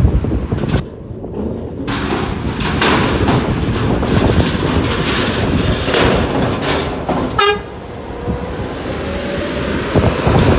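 Heavy diesel buses running and moving past close by, with a steady low engine noise and a horn sounding faintly in the second half.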